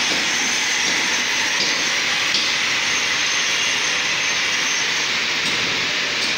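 A machine grinding a concrete floor, running steadily: a continuous loud hissing roar with no rhythm and no pauses.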